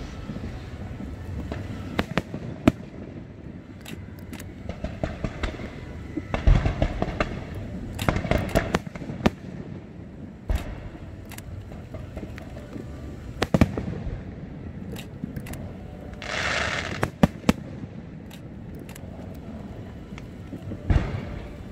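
Fireworks display: irregular sharp bangs of bursting shells, with a dense run of crackling about a third of the way in and a brief hiss about three-quarters of the way through.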